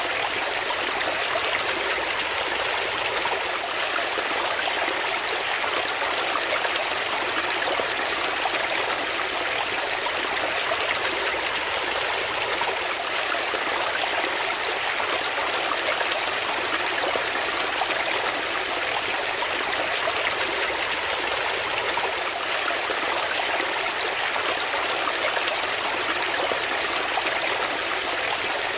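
Shallow brook tumbling over rocks in small cascades: a steady, even rush of water with a bright splashing hiss and little low rumble.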